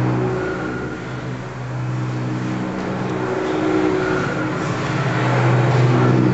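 A sound installation's steady low bass drone, with sustained higher tones fading in and out over a hiss.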